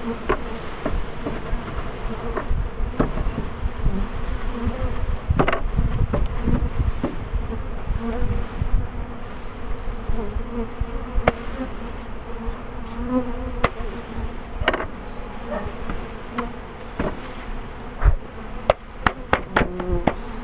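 A mass of honeybees buzzing steadily as a package is shaken out into a top bar hive, the bees agitated by the dumping. Sharp knocks from the package cage sound now and then, several in quick succession near the end.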